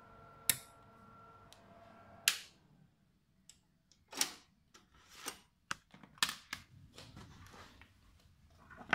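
A sharp switch-like click, after which a steady electronic whine from the computer equipment dies away about a second later. Then a run of separate clicks and knocks as the front drive bay of the TI expansion box and its hardware are handled.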